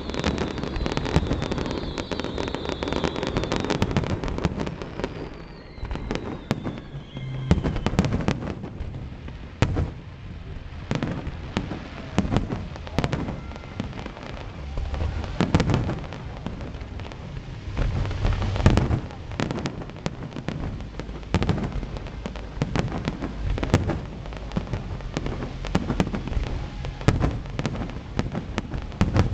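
Aerial fireworks display: many sharp shell bursts going off one after another, with dense crackling in the first few seconds and a falling whistle about six seconds in.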